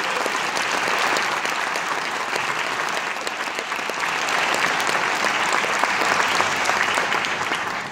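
Audience applauding steadily in an auditorium, the clapping dying away at the end.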